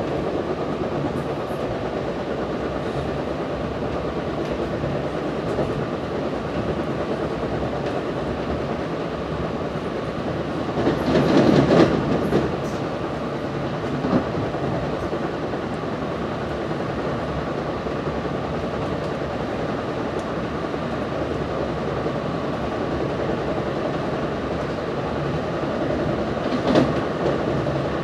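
Commuter train running, heard from inside the passenger coach: a steady rumble of wheels on rail, with a louder rush about eleven seconds in and a smaller one near the end.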